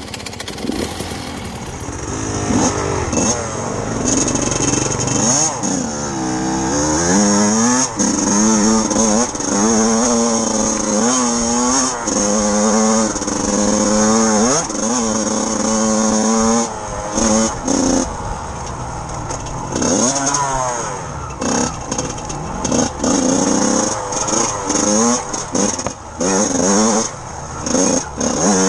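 Yamaha dirt bike engine under way, revving up and falling back over and over as the rider works the throttle and gears on a rough trail.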